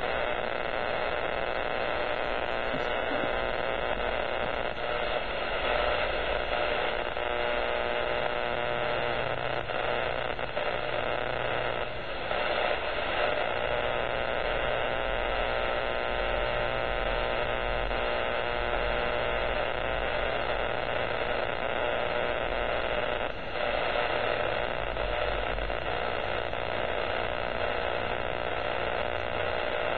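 Power line noise heard through an amateur radio receiver's speaker: a steady harsh buzzing static with a hum underneath. It is interference from a nearby power line that is covering the HF and 6 m ham bands.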